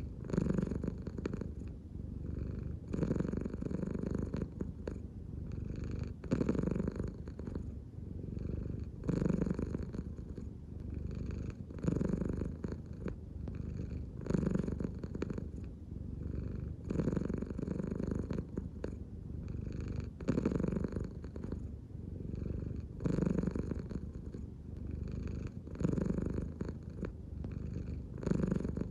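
American Shorthair cat purring steadily, the purr swelling about every two to three seconds as it rises and falls with each breath.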